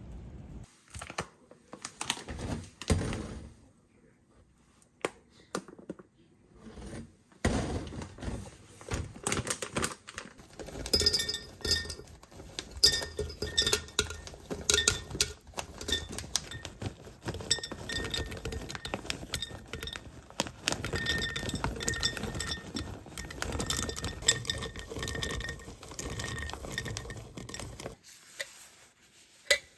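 Hard containers and dishes clinking and knocking as they are handled and moved about. There are a few scattered knocks at first, then from about seven seconds in a busy run of clinks and clatter that settles near the end.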